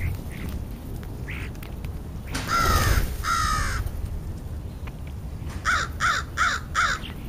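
American crow cawing: two long caws, then a run of four short, quick caws near the end.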